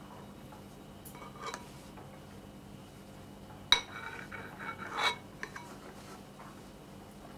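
A spoon clinking and scraping in a bowl: faint scrapes about a second in, then a sharp ringing clink nearly four seconds in, more scraping, and a second clink about a second later.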